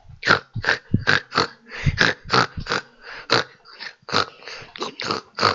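A pig's short grunts in quick succession, about three a second, a little softer around the middle.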